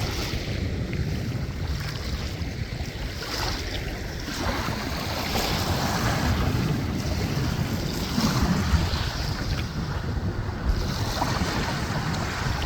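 Sea waves washing on the shore, with wind rumbling on the microphone.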